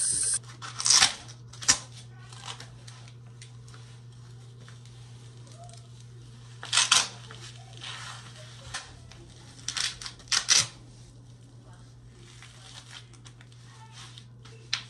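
Hook-and-loop (Velcro) fastening straps of a waist trainer band being ripped apart and pressed closed: a handful of short rips, about a second in, around seven seconds and twice around ten seconds, over a steady low hum.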